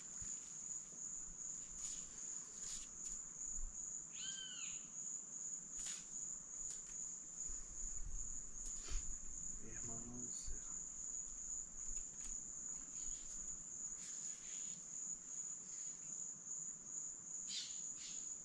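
Insects chirring in one steady, high-pitched, unbroken drone, with a brief arching call about four seconds in.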